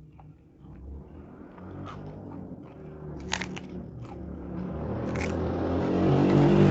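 Close-up crunchy biting and chewing, with a few sharp crunches. Under it, a passing motor vehicle's engine hum rises steadily and becomes the loudest sound near the end.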